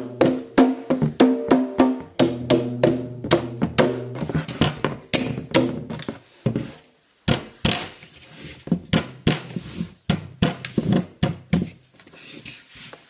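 Dholak played by hand: quick strokes on its heads, sharp slaps over low ringing drum tones. After a short break about six seconds in, the strokes come back sparser and with less ringing.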